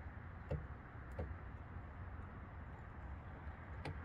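Three sharp clicks from a manual caulking gun's trigger as a bead of caulk is pressed out, over a steady low hum.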